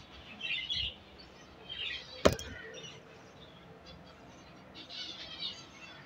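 Zebra finches in an aviary colony chirping in short scattered bursts. One sharp knock comes a little after two seconds in.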